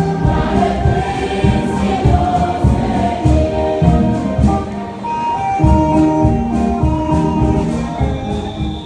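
A choir singing, many voices holding and changing notes together over a low rhythmic beat, easing off near the end.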